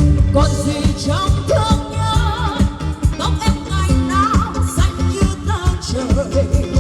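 A female vocalist singing a pop song with vibrato over backing music with a steady drum beat, played loud through a live concert PA system.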